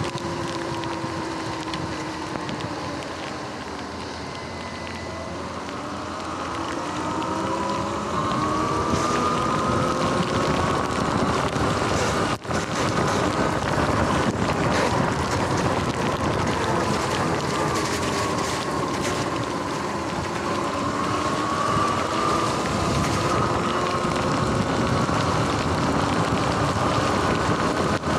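Sur-Ron electric dirt bike's motor whining as it rides. Its pitch falls as the bike slows a few seconds in, climbs as it speeds up, dips again about two-thirds of the way through and rises once more. Under it runs a steady hiss of wind on the microphone and tyres on wet pavement.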